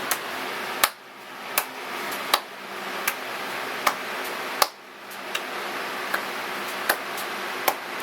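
Sharp ticks repeating evenly, about four every three seconds, over a steady hiss.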